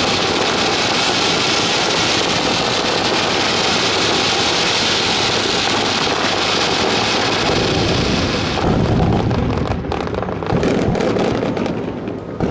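Fireworks finale barrage: a dense, continuous crackle from many shells going off at once for about eight seconds, then heavier separate booms and sharp bangs.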